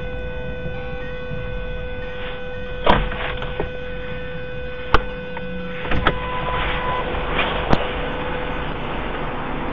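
Patrol car recording with a steady electrical hum and tone over a low vehicle rumble, broken by a few sharp knocks and clicks about three, five, six and near eight seconds in.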